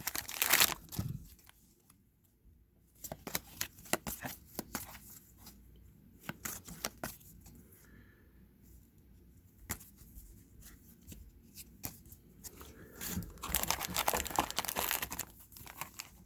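Trading card packaging being torn open and crinkled by hand. There are bursts of crinkling at the start and again near the end, with quieter handling and light clicks between.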